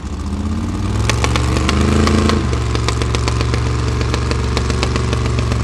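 Formula Offroad buggy's engine revving hard under load on a dirt climb: the revs rise over the first two seconds, then hold high and steady. Many sharp clicks and crackles are mixed in throughout.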